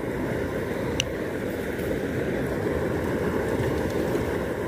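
Water of a small stream flowing with a steady rushing sound, with one faint click about a second in.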